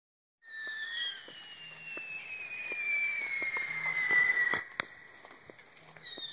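Whistling fireworks: a shrill whistle falls steadily in pitch for about four seconds amid scattered pops, then a sharp bang. A second falling whistle starts near the end.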